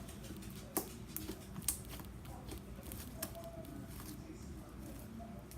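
Scattered small clicks and taps from handling a plastic glitter container while adding glitter to slime, with two sharper clicks about a second and a second and a half in.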